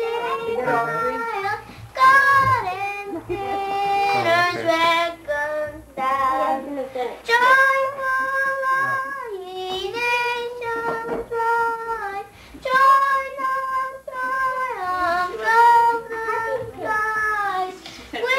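Young children singing a song, with long held notes that glide from one pitch to the next.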